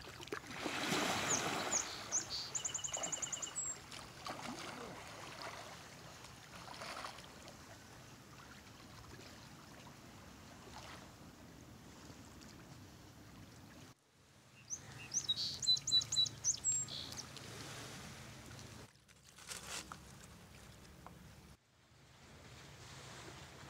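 Outdoor lakeside ambience: small birds chirping and trilling in short bursts near the start and again about two-thirds of the way through, over a faint steady hiss of water and breeze.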